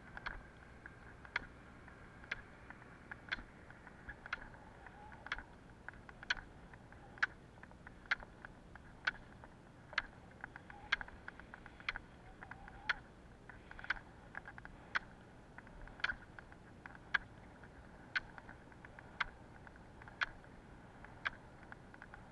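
Roller-ski pole tips striking asphalt, a sharp click about once a second, over the faint steady rolling noise of the roller-ski wheels.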